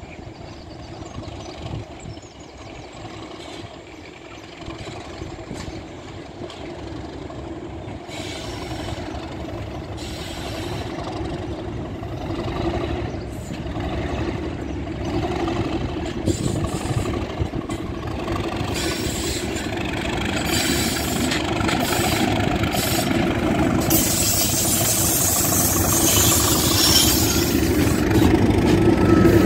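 Class 37 diesel-electric locomotive, with its English Electric V12 engine, running as it approaches and draws alongside, growing steadily louder; rail and wheel noise builds over the last few seconds.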